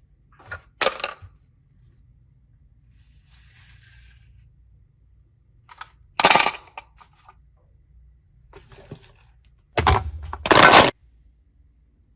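Short, sharp handling noises of small objects: a clatter about a second in, another past the middle, and a louder double clatter near the end, with a faint rustle between.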